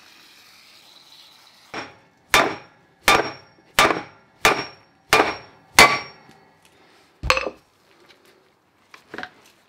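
A hammer striking a block of hardwood timber to drive a Toyota Hilux front wheel hub out of its brake rotor: a lighter first blow, six hard blows about two thirds of a second apart, then one more after a short pause. A few faint clinks follow near the end.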